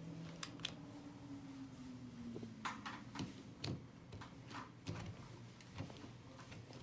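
Faint, scattered light clicks and knocks at irregular intervals, over a low steady hum.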